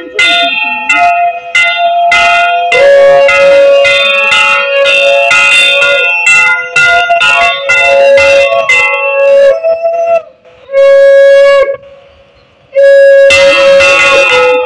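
Conch shell (shankha) blown in long held blasts while a hand bell is rung rapidly, the usual sounds of a Hindu puja rite. The bell strikes stop about ten seconds in, leaving two long conch blasts near the end.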